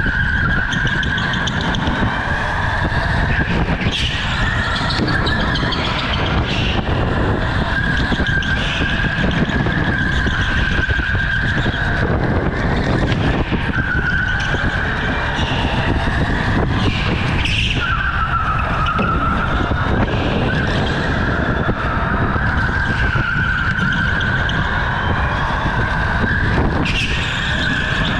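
OTL Storm electric go-kart's motor whining at speed, its pitch rising and falling as the kart speeds up and slows for the corners, over steady tyre and rushing noise from the kart scrubbing through turns on a concrete floor.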